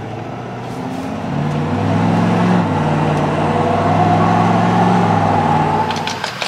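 Ford Super Duty diesel pickup's engine pulling harder, heard from inside the cab. Its note steps up and grows louder about a second and a half in, holds with a higher whine over it, then eases off near the end.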